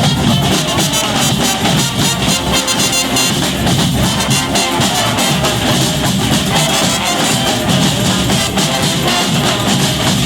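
Brass band playing live: horns and drums over a steady beat.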